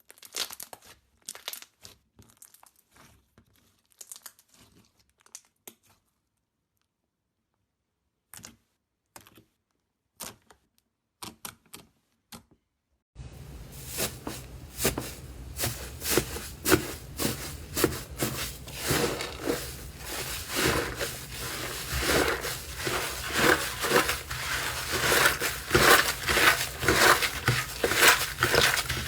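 Slime being squeezed and handled, giving scattered sticky pops and crackles with gaps of silence. About halfway through it changes to a louder, dense, continuous crackling and crunching.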